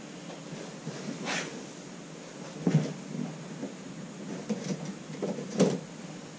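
Sports cards and their box being handled while sorting: a brief sliding sound, then light taps and knocks, with two louder knocks, one shortly before the middle and one near the end.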